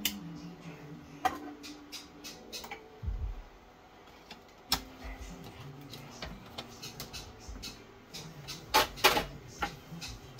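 Kitchen clatter of utensils and dishes being handled: scattered clicks and knocks, with two sharp knocks in quick succession near the end.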